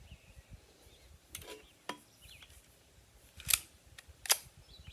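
Sharp metallic clacks and reports from a semi-auto Sten Mk2 kit gun being worked and test-fired on a small magazine load. Two lighter clacks, one with a short metallic ring, come in the first half, and two stronger cracks come in the second half.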